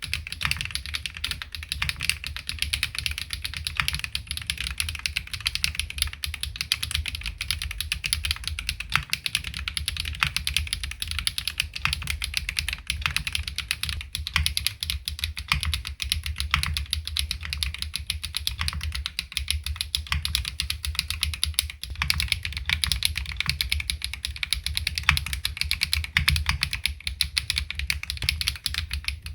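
Rapid, continuous typing on a LINWORKS ORCA65 65% bottom-mount custom mechanical keyboard built with HMX Duck Duck linear switches on a PC plate with no foam, under LINWORKS LINGRAY keycaps.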